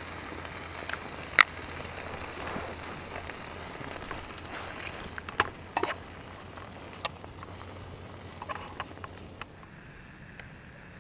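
A knife clicking and scraping against a small camp frying pan of sliced sausage and vegetables, over a steady faint crackle of the food cooking. One sharp click comes about a second and a half in, and a cluster of clicks follows from about five seconds on.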